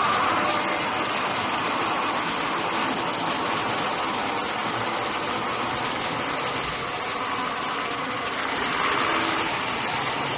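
Laminating machine running steadily as its rollers wind printed vinyl wrap film, a continuous even mechanical noise.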